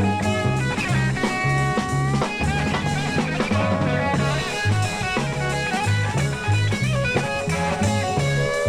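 Instrumental break of a blues song: lead guitar playing bent notes over a stepping bass line and drums.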